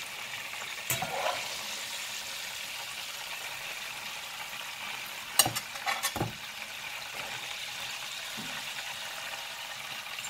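Steady hiss of oil frying, with a few sharp knocks of a spatula against a china plate: one about a second in, then a cluster a little past halfway, the loudest of them.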